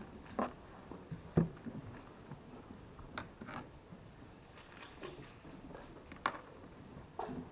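Scattered sharp clicks and knocks, a few seconds apart and irregular, over a faint room hum; the loudest comes about one and a half seconds in.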